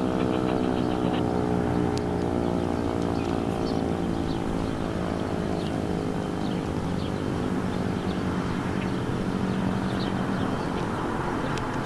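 Outdoor warning siren sounding a steady, low, buzzy tone with many overtones. The tone slowly fades and grows rougher toward the end as the siren winds down.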